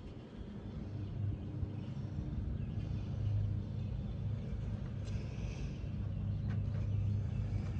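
A motor vehicle's engine running steadily with a low, even rumble.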